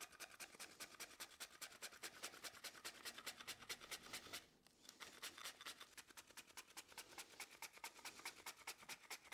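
Apple quarters being pushed quickly back and forth over a handheld mandoline slicer, a faint, even run of rasping slicing strokes, about six a second, with a short break about halfway through.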